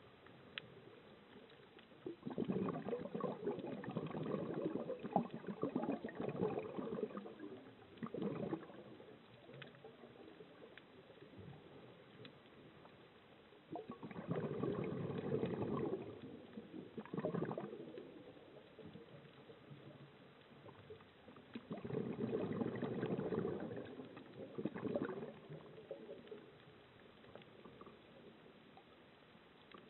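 Scuba diver's exhaled air bubbling out of the regulator, heard underwater: three gurgling bursts of bubbles a few seconds long, about eight seconds apart, with faint hiss between breaths.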